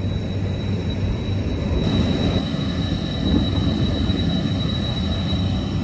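Steady low rumble with a faint constant high whine: wind on the microphone over the drone of an offshore production platform's machinery.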